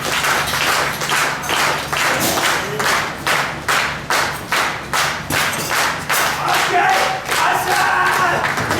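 Wrestling crowd clapping in unison, a steady rhythm of about three claps a second.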